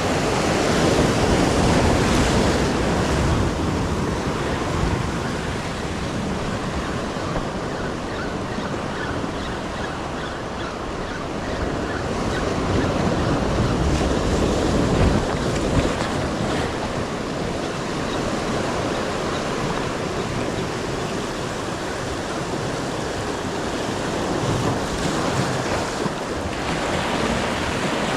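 Ocean surf washing on the shoreline, a steady rush that swells and eases, with wind rumbling on the microphone.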